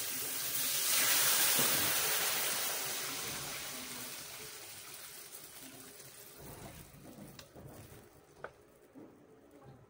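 Water poured from a jug into a hot frying pan of sautéing chicken: a rushing hiss and splash as it hits the hot oil, swelling about a second in and then fading away over several seconds. A wooden spatula knocks against the pan a couple of times near the end.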